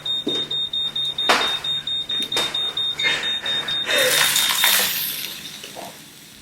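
Smoke alarm beeping rapidly in a high pitch, stopping after about four and a half seconds, set off by something burning. Several short bursts of hissing noise sound over it, the longest near the time the beeping stops.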